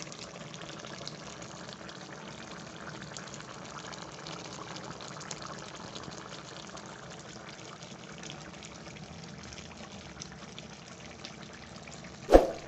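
Fish and vegetables in coconut milk simmering in a pan on a gas burner: a steady bubbling with fine crackles. A single sharp knock near the end.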